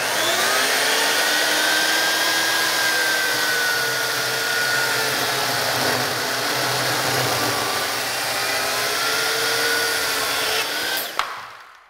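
Skilsaw carpentry chainsaw, a worm-drive saw driving a chain bar, cutting through a 6x6 cedar beam in one long pass: a steady motor whine with chain rasp, its pitch dipping slightly mid-cut. Near the end there is a click and the saw winds down quickly.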